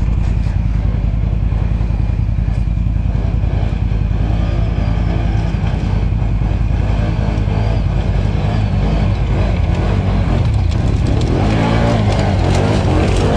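ATV engine running under off-road riding, its pitch rising and falling with the throttle, more so in the second half.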